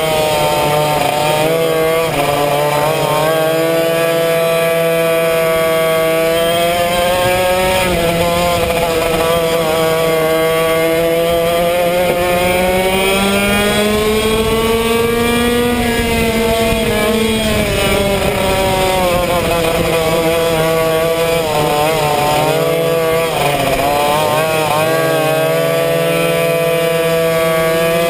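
Yamaha 100cc two-stroke kart engine running at racing speed, heard from on board the kart. Its note climbs steadily to a high peak about halfway through, falls away a couple of seconds later, and dips briefly several other times as the kart slows for turns.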